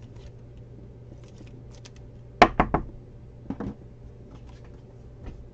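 Scattered light clicks, then a quick run of three sharp clacks about two and a half seconds in and two softer ones a second later: small hard objects handled on a tabletop.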